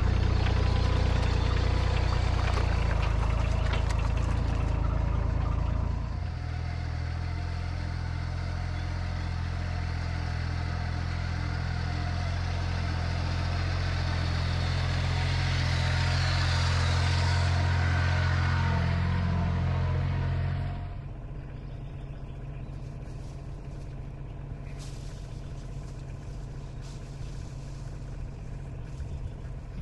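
Farm tractor engine running steadily as the tractor drives uphill with a full front-loader bucket of wood chips. About two-thirds of the way through the sound drops to a quieter, lower steady running.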